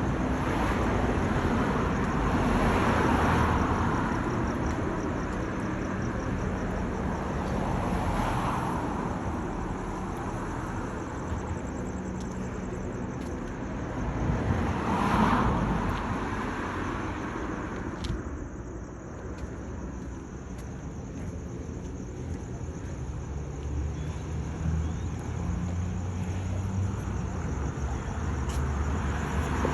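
Street traffic: cars passing one after another, each rising and fading as it goes by, the loudest about halfway through.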